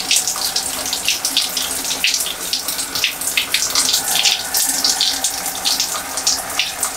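Shower running, its water spattering steadily with many small irregular splashes.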